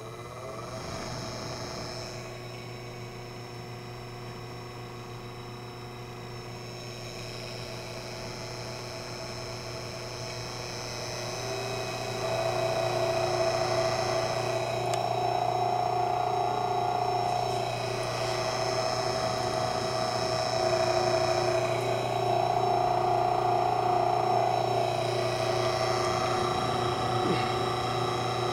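Laboratory mixer's electric motor running steadily, spinning a disc impeller in a pot of water, with a steady whine over a low hum; it gets louder about twelve seconds in.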